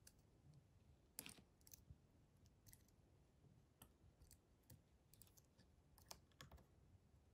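Faint, irregularly spaced metallic clicks of a lock pick working the pin tumblers of a small triangular six-pin cabinet lock held under tension.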